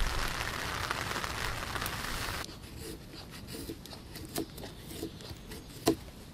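A steady hiss like rain for the first two and a half seconds. It then cuts off abruptly to a knife shaving curls from a wooden branch: short, quiet scraping strokes at irregular intervals, with a few sharper clicks.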